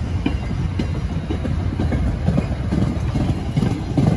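MBTA commuter rail passenger coaches rolling past close by. There is a steady low rumble with irregular wheel thumps and clacks from the wheels on the rails.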